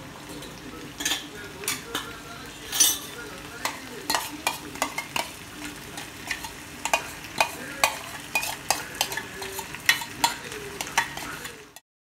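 Vegetables and red sauce sizzling in a non-stick wok, with frequent short clicks and knocks of a spatula and steel bowl as white sauce is scraped into the pan. The sound cuts off abruptly near the end.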